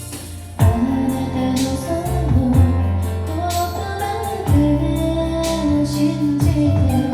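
A woman singing a Japanese pop ballad over a karaoke backing track. The drums and bass come in about half a second in.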